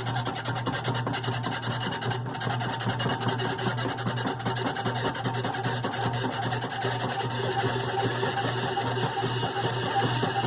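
GE top-load washer (model WDRR2500K3WW) during agitation making its fault noise: a loud, steady, rough mechanical noise over a low hum. The cause has not been diagnosed.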